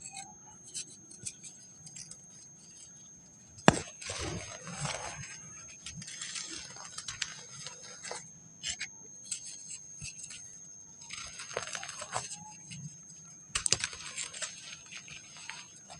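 Dry sand being crumbled and crushed by hand, in several crisp, crackly bursts of falling grains a second or two long. A sharp snap about four seconds in is the loudest sound.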